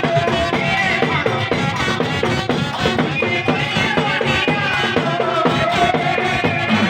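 Music for a Gujarati jagar devotional gathering, with a steady drum beat under a held melodic line.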